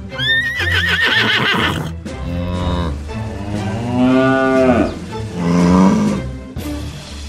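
A horse whinnies with a high, wavering, falling call in the first two seconds, then cattle moo several times, the longest call about four seconds in.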